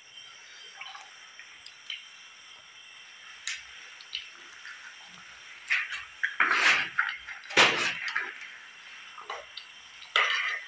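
Cooking over a wood fire: fish frying in a pan with scattered small crackles and clicks over a faint hiss, and a few short louder scrapes and knocks of utensils on the pan about six to eight seconds in and again near the end.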